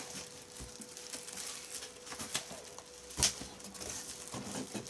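Plastic bag wrapping crinkling and cardboard rubbing as a bagged band saw is lifted out of its shipping box, with one sharp knock about three seconds in.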